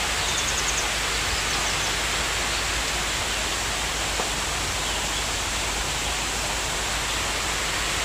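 Waterfall pouring down a rock face onto boulders: a steady, even rush of water.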